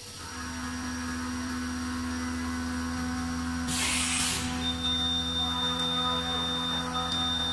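A CNC vertical machining center's motors start up about a third of a second in and hum steadily with several fixed tones. A short burst of hiss comes about halfway through, and a thin high tone joins just after.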